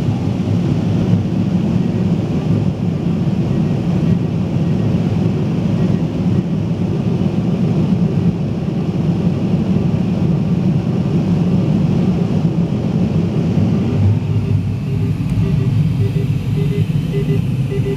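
Steady rush of airflow past a glider's canopy in flight, heard inside the cockpit. Near the end a faint short beep repeats about twice a second.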